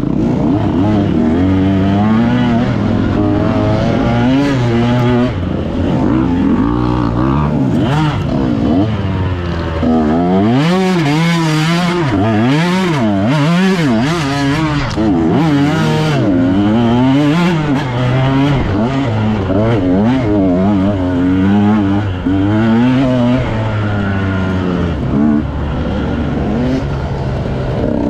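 Off-road dirt bike engine revving up and down constantly as the throttle is worked. In the middle there is a run of quick, sharp high-rev blips.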